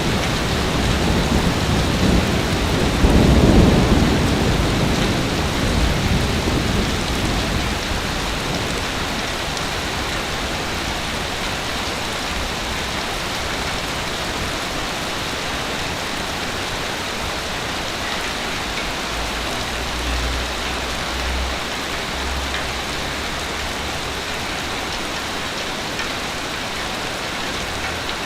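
Ocean waves on a beach: a wave breaks about three seconds in, then a steady hiss of surf washing over the shore.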